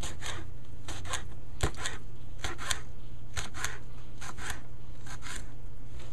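Kitchen knife slicing a red sweet pepper into thin strips on a cutting board: repeated short cuts and taps of the blade on the board, about two a second, with one louder knock about a second and a half in. A steady low hum runs underneath.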